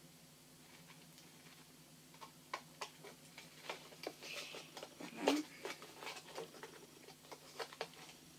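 Irregular small clicks and crinkles of packaging being handled and turned over, with a louder crackle a little past the middle.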